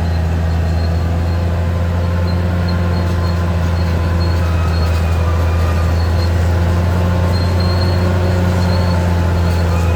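Caterpillar D6R XL bulldozer's diesel engine running steadily with a deep, even hum.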